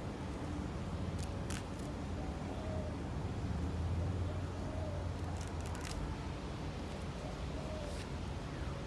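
Faint rustling and a few light clicks of hands handling plastic ornaments among chrysanthemum leaves, over a steady low rumble.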